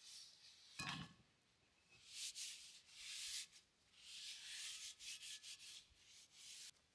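Paper towel rubbing oil over a cast iron pan to re-season it: soft, faint swishing strokes, with a soft knock about a second in.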